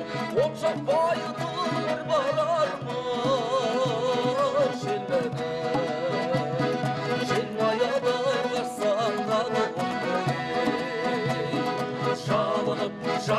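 Kazakh folk music: a melody with wide vibrato over accordion-like accompaniment and a steady strummed beat.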